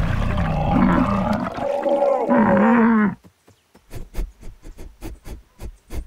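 Cartoon long-necked sauropod dinosaurs calling: deep, overlapping moaning calls that glide up and down in pitch, cutting off about three seconds in. A quick run of soft taps follows, about four or five a second.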